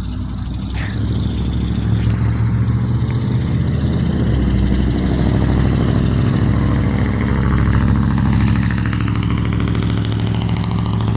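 A motor vehicle's engine running close by: a steady low hum that grows a little louder over the first couple of seconds and then holds.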